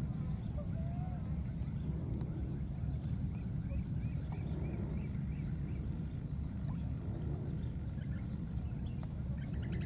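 Steady low outdoor rumble, with a short run of about eight quick high chirps, around four a second, starting about three and a half seconds in.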